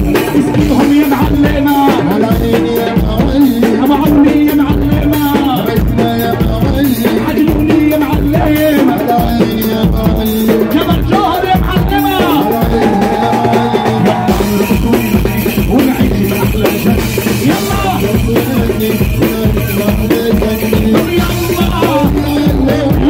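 Loud live Arabic party music played through a PA: an electronic keyboard over a steady drum rhythm, with a male singer singing into a microphone.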